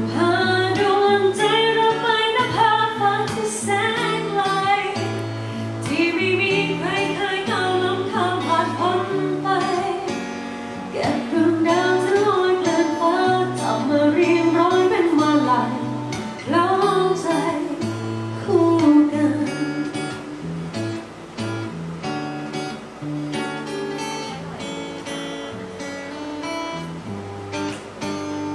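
A woman singing a slow pop song to acoustic guitar accompaniment. The voice stops about two-thirds of the way through, leaving the guitar playing alone.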